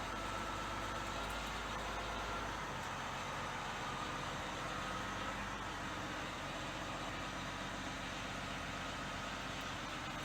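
Heavy construction machine's diesel engine running steadily, with a faint steady whine over the engine noise.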